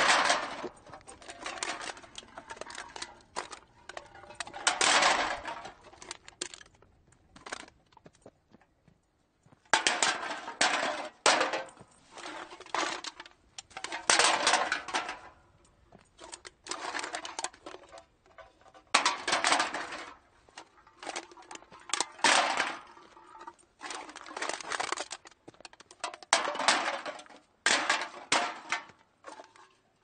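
Cans being dumped into a cart close up: a series of clattering bursts of metal cans hitting each other and the cart, every second or two, with a brief pause about a third of the way in.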